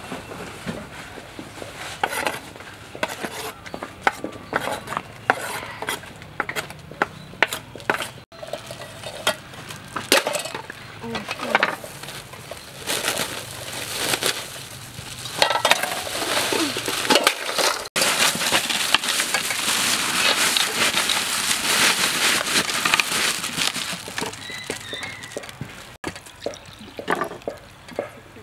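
Food-preparation handling noises in several cuts: sharp clicks and taps of a knife cutting avocados on a wooden board, then crinkling of a plastic bag of grated coconut cut open over a steel bowl, with a long stretch of steady rustling.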